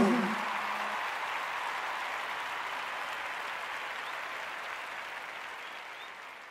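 Live audience applauding as a country-rock song ends, the band's last held note dying out about a second in. The applause fades out gradually.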